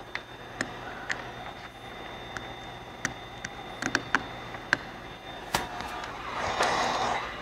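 Vinyl wrap film being worked onto a car door by hand and squeegee: scattered light clicks and ticks, then a short rubbing swish about six seconds in.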